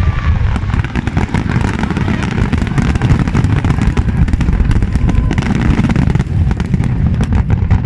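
Fireworks display going off in a dense run: rapid overlapping bangs and crackles over a continuous low rumble.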